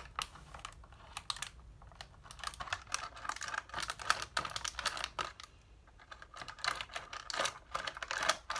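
Thin plastic water bottle being handled, crackling and clicking in quick irregular runs.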